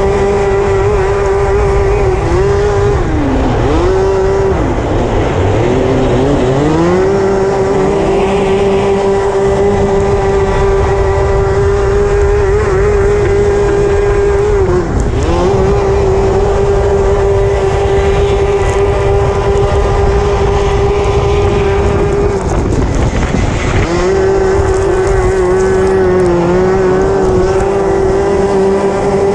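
Racing kart engine heard from on board, running at high revs and held steady for long stretches, its pitch dropping and climbing back several times as the throttle is lifted for corners: twice early on in quick succession, once about halfway, and once more near the end.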